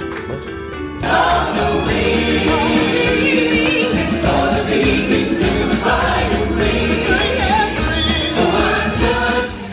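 Background music: an upbeat song that swells about a second in into a full band with a choir of voices singing.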